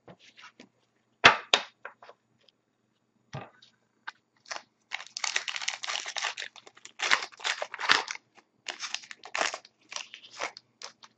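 Trading-card pack wrapper crinkling and tearing open: a few sharp snaps, then a long stretch of dense crackling as the wrapper is torn and crumpled.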